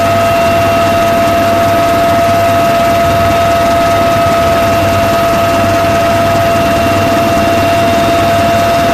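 Marine Corps helicopter's twin turboshaft engines and rotor running steadily in flight, heard from aboard: a constant high whine over a low drone.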